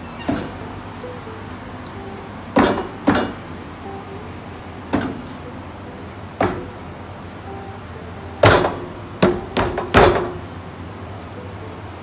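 Fists banging on a folding table: about nine sharp bangs at uneven intervals, with four hard ones in quick succession near the end.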